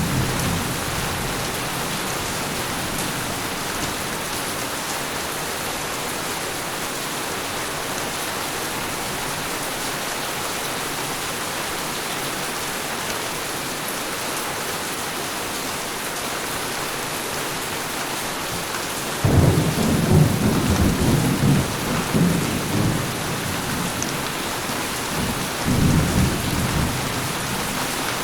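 Tropical storm: heavy rain with a steady hiss, and thunder rumbling in suddenly about two-thirds of the way in for several seconds, then once more, more briefly, near the end.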